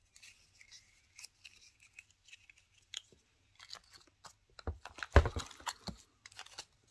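Hands handling small rolls of nail transfer foil in a clear plastic compartment box: scattered light plastic clicks and rustles, growing busier partway through, with a few heavier knocks about five seconds in.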